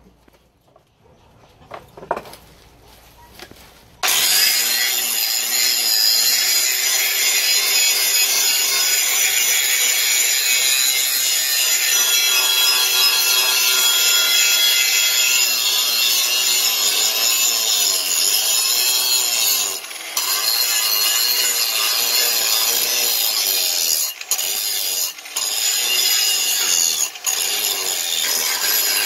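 A handheld angle grinder is switched on about four seconds in, after a few light knocks, and grinds the rusty steel of an axe head with a steady high whine and a harsh grinding hiss. Its sound dips briefly a few times later on as the disc eases off the metal.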